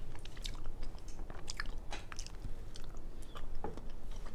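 A person chewing a mouthful of food with the mouth closed, picked up close by a clip-on microphone: irregular wet mouth smacks and clicks.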